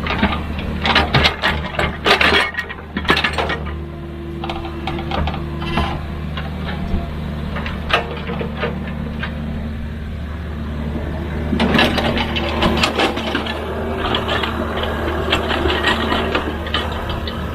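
Excavator's diesel engine running steadily, with bursts of metal clanks and rattles near the start and again in the second half.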